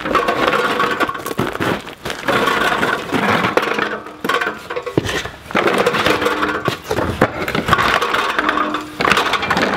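Portable generator on a wheeled dolly being rolled over gravel and into a concrete-floored room: casters crunching and rattling, the metal frame clattering, in several pushes with short pauses between them.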